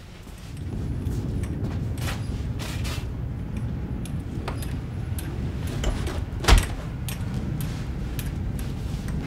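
Front door being closed and locked: keys jangling and clicking in the lock, with one sharp knock about six and a half seconds in, over a steady low rumble.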